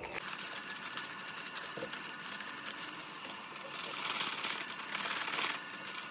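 Plastic MRE heater sleeve crinkling and rustling as a pizza pouch is worked into it, louder for a couple of seconds past the middle.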